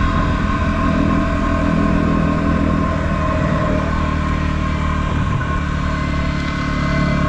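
2016 Yamaha WR250R's 250 cc single-cylinder four-stroke engine running steadily under way, its note shifting slightly a couple of times.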